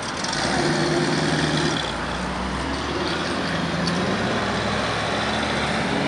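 Classic vehicles driving by at low speed, one after another: an old pickup truck's engine pulling away, then a vintage Volkswagen Beetle going past. The engine sound swells about half a second in and then holds fairly steady.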